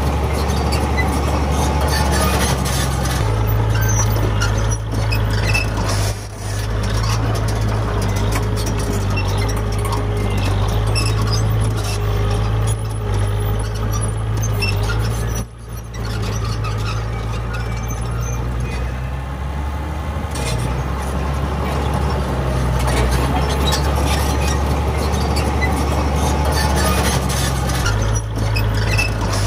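Heavy diesel earthmoving machinery running steadily: a deep engine drone, with two brief drops in level.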